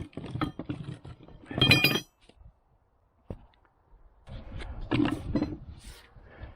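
Metal hand tools and car parts clinking and rattling, with one loud ringing metallic clink about two seconds in and more rattling and scraping later.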